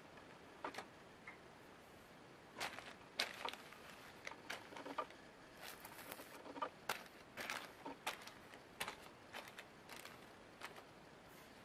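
Small plastic zip-lock bags of 5 mm LEDs being handled and set down on a tabletop: faint, irregular crinkles and light taps, busiest in the middle stretch.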